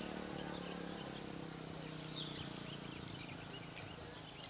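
Small birds chirping in many short, scattered calls, while a passing motor vehicle's engine hum fades away over the first couple of seconds.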